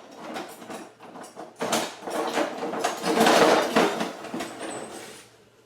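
Dishes and kitchen items being handled: a run of knocks and clatter, densest in the middle, then dying away near the end.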